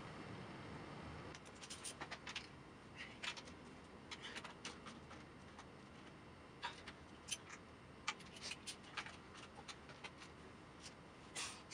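Faint, irregular metallic clicks and taps of a wrench and nuts as the valve cover nuts are fitted and tightened down on the valve cover of a BMW M20 engine.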